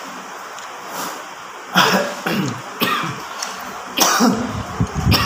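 A man eating spicy meatball soup, making four short, sharp mouth-and-throat sounds about a second apart as he takes broth from the spoon.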